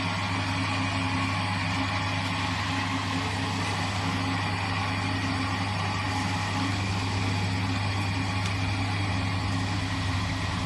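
Brake disc and drum lathe running steadily, its motor humming at a constant pitch with a broad steady hiss over it.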